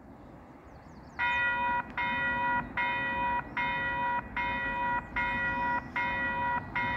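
Electronic warning beeper starting about a second in: a loud, steady-pitched beep repeating about once every 0.8 seconds, each beep long with only a short break between.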